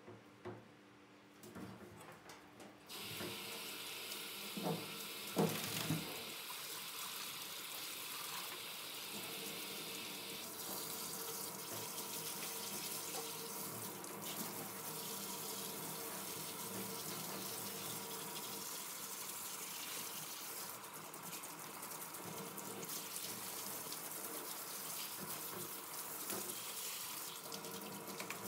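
Water running from a hand-held hose into a stainless steel grooming sink as shampoo lather is rinsed off a dog's coat. The water starts about three seconds in and then runs steadily, with a few knocks just after it starts.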